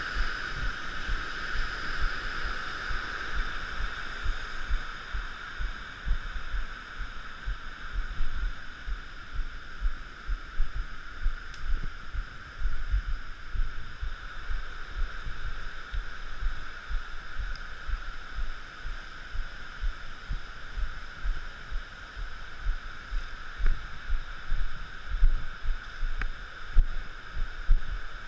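Irregular low rumbling thumps, like buffeting and jolts on the microphone, under a steady high-pitched hiss; the thumps grow stronger near the end.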